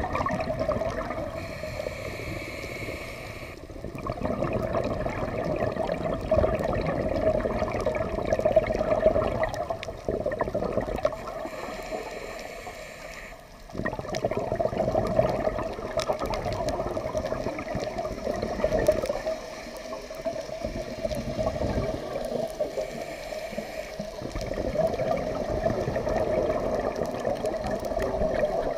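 Scuba diver breathing through a regulator underwater: long gurgling rushes of exhaled bubbles, broken every several seconds by a quieter inhalation.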